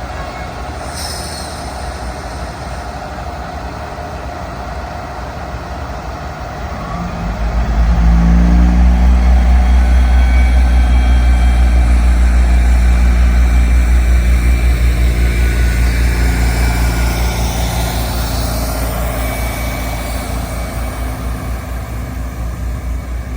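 The diesel locomotive of an SRT passenger train pulls into the station, its engine building to a loud, deep drone about seven seconds in, then easing off toward the end.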